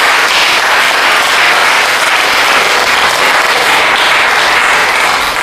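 Audience applauding: dense, steady clapping that holds at one level.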